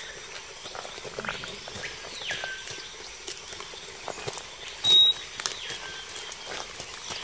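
Rainforest ambience: a wild animal's whistled call that rises and falls about a second in, and a short, sharp high chirp about five seconds in, the loudest sound, over scattered clicks and steps of someone walking on the trail.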